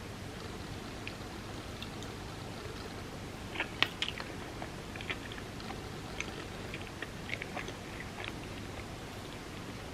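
Close-miked eating sounds: chewing and biting with scattered crisp mouth clicks, the loudest cluster about four seconds in.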